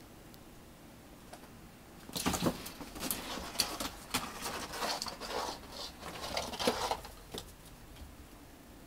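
An American Shorthair kitten scrambling down the side of a wire cage: irregular clicks, scrabbling and rattles of claws and paws on the metal mesh. They start about two seconds in and die away after about five seconds.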